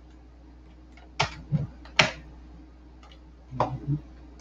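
A handful of separate computer keyboard keystrokes. Sharp clicks come about a second in and at two seconds, the second of these the loudest, then a couple more near the end with a duller knock.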